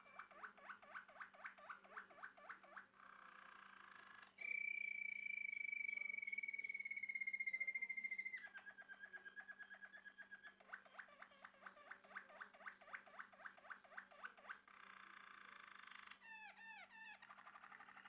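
Male Malinois Waterslager canary singing: rows of quick rolling notes, a loud, clear whistle held for about four seconds in the middle, then a shorter held note and more rolling notes, with a fast bubbling run near the end.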